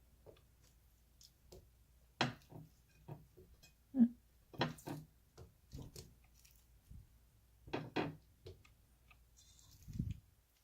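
Chicken pieces and a utensil being laid into a rice cooker's inner pot: scattered light knocks and taps, with a low thump near the end.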